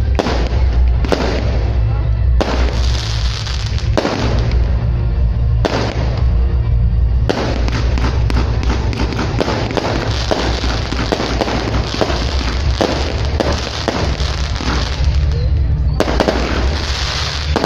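Fireworks display: shells bursting in rapid succession, many sharp bangs and crackles with echoing tails, over music with a heavy bass.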